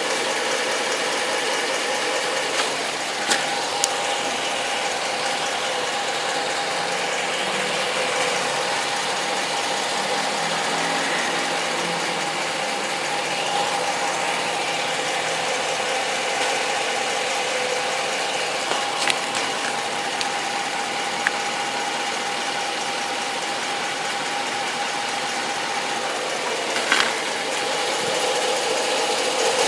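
2013 Hemi V8 engine running steadily at idle, with a steady whine and a few scattered sharp clicks; the owner is recording it for a strange noise.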